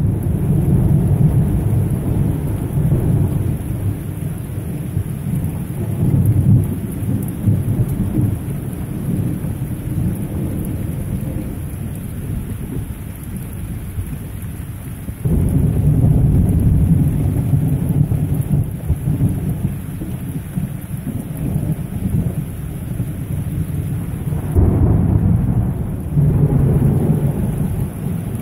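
Heavy rain pouring steadily during a thunderstorm, with low rolling thunder. The rumbling dies down over the first half, then a new roll of thunder comes in suddenly about halfway through and another near the end.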